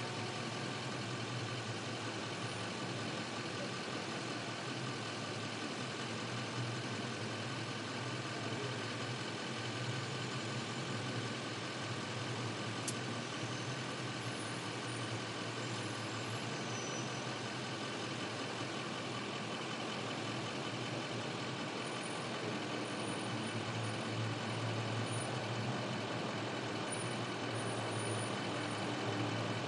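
Steady low rumble of idling vehicle engines, the stationary limousine and motorcade waiting with engines running.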